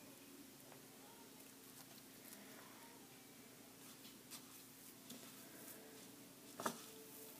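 Near silence with faint small ticks and rustles of hands handling things, and one sharper click near the end.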